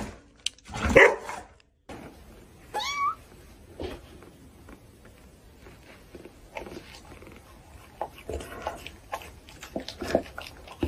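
A hairless dog barks once, loud and short, at a portrait of itself. After a cut there is a brief high rising-and-falling cry, then faint scuffling from a kitten and a dog wrestling.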